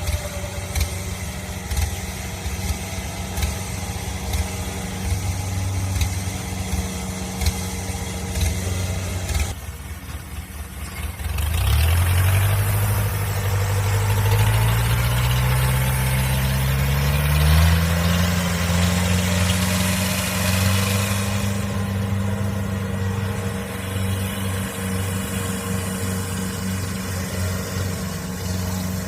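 Kubota DC70 Plus combine harvester's diesel engine running at low speed, then revving up about eleven seconds in, its pitch rising over several seconds and holding at high revs.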